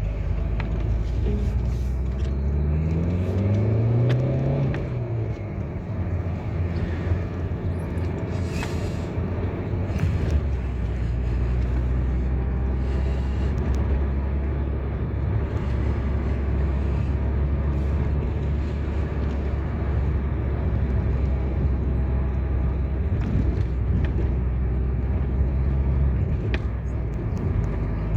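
Road vehicle driving: the engine rises in pitch twice in the first few seconds as it accelerates through the gears, then settles into a steady low rumble of cruising.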